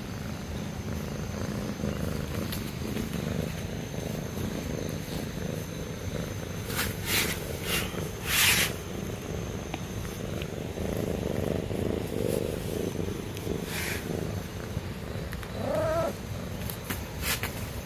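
Domestic cat purring in a steady low rumble, the sound the owner calls snoring. A few short hissy bursts break in around the middle, the loudest at about eight and a half seconds, and a brief rising chirp comes near the end.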